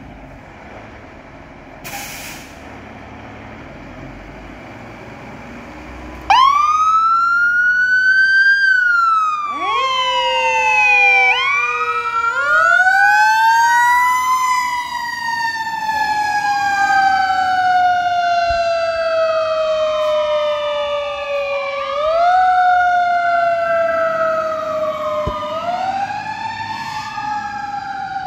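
Fire engine's siren switching on about six seconds in with a sharp rise, then wailing in long slow rises and falls, with a second siren tone sweeping out of step over it from a few seconds later. Before the siren starts there is only low steady noise with one brief sharp noise about two seconds in.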